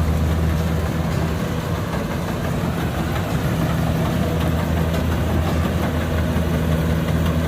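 Kubota DC60 combine harvester's diesel engine running steadily with an even, low hum.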